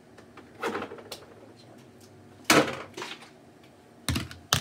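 A series of sudden knocks and clunks as ingredient containers are fetched and set down on a kitchen counter, the loudest about halfway through and two sharp ones near the end.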